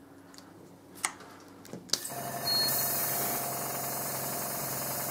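Two light clicks, then about two seconds in a small airbrush compressor starts with a steady motor hum while air hisses out through the airbrush, blowing cleaner through it to flush it clean.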